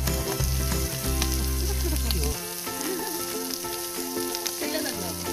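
Background music with a bass line that drops out about two seconds in, over a steady sizzling hiss.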